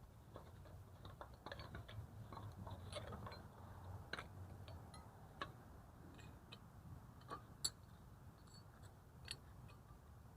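Faint, irregular clicks and light metallic taps of drum brake parts (shoes, springs and clips) being handled and fitted by hand, with one sharper click about three-quarters of the way through.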